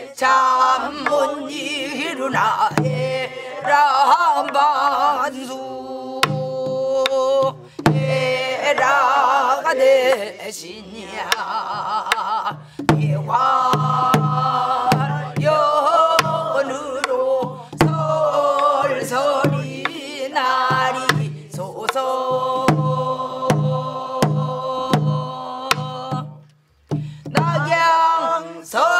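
A group singing a Korean folk song together, accompanied by a buk barrel drum struck with a stick in a steady beat. The singing and drumming break off briefly about two seconds before the end.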